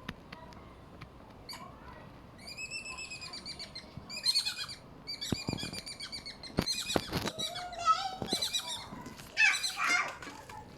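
Squirrel calling in rapid trains of sharp, high chirps, in several bouts of about a second each, with a few sharp knocks near the middle.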